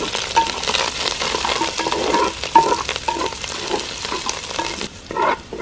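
Sliced shallots, green chillies and curry leaves sizzling in hot coconut oil in a clay pot, with many fine crackles, while a wooden spatula stirs them round the pot.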